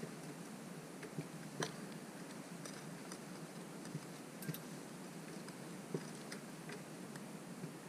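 Faint, irregular small clicks and light rustling from hands handling clear monofilament fishing line and a feathered hook, over a steady low hiss.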